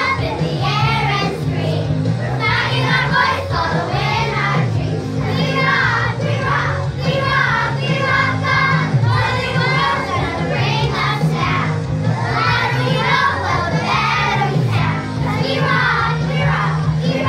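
Young children's choir singing a rock song in unison over recorded backing music, with a steady bass line under the voices.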